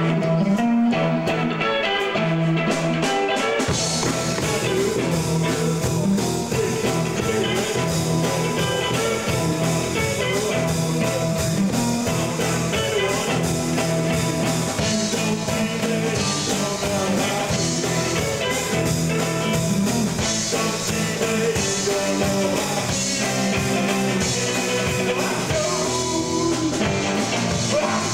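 Rock band playing live: electric guitars, bass and drum kit, with a voice singing. The sound fills out with more top end about four seconds in.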